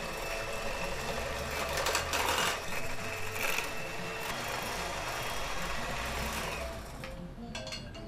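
Electric hand mixer running, its twin beaters whirring through a thick cake batter of egg, sugar, butter and cream cheese in a glass bowl, with a thin steady motor whine. The motor stops about seven seconds in, followed by a few light clicks.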